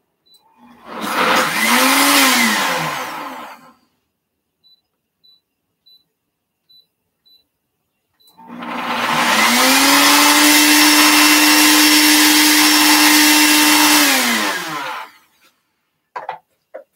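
Countertop blender motor pureeing green plantains with a little water into a thick batter. It gives a short burst of about three seconds, then a longer run of about six seconds, each spinning up in pitch and winding down as it stops.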